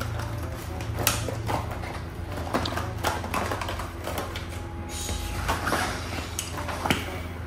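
Metal hand tools clicking and clinking against each other as they are handled and packed into a tool bag: a string of irregular knocks.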